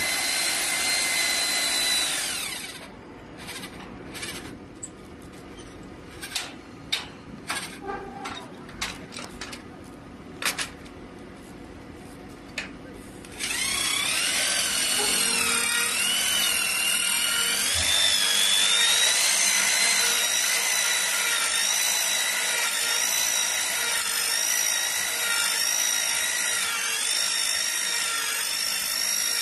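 Electric straight-thread rebar socket wrench with a 2400 W motor running with a high whine, then winding down after about two seconds. Several sharp clacks follow. About halfway through the motor starts again, climbs in pitch and runs on with a wavering whine.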